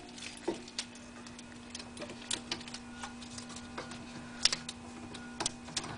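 Irregular light clicks and metallic taps of a wire coat hanger being hooked around a front coil spring to hang the brake caliper, a couple of taps louder than the rest, over a steady low hum.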